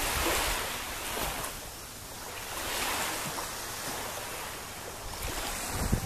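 Small sea waves washing in on a sandy beach, the hiss of the surf swelling and fading every second or two, with a little wind on the microphone.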